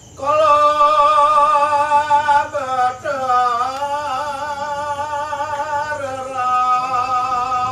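Solo singer in a Balinese Kecak performance singing a long melodic line, holding wavering notes, with the pitch dipping and rising again about three seconds in.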